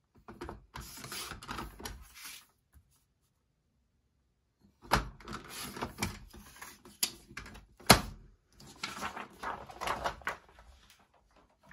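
Paper trimmer cutting sheets of patterned paper: the blade carriage sliding along its rail, with paper rustling as sheets are moved and lifted. There are several sharp clicks, one loud click in the middle being the loudest, and a pause of about two seconds near the start.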